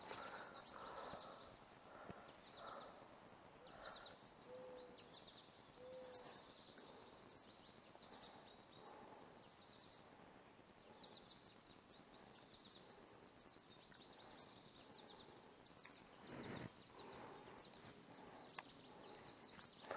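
Faint outdoor background with short, high chirping trills that repeat every second or so. A brief rustle comes about sixteen seconds in.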